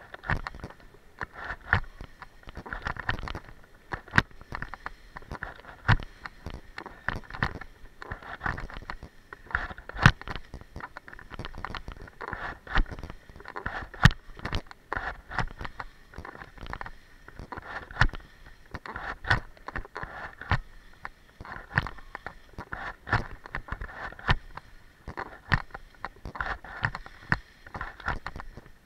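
Skis scraping and hissing over packed, rutted snow on a downhill run, with frequent irregular sharp knocks and clicks throughout.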